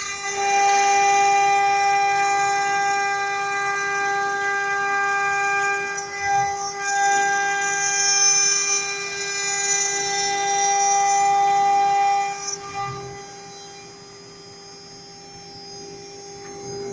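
CNC router spindle whining steadily at a high pitch while its bit mills aluminum-plastic composite panel and acrylic sheet, with cutting noise over the tone. About twelve seconds in the cutting noise falls away and leaves a much quieter spindle whine, which grows louder again near the end.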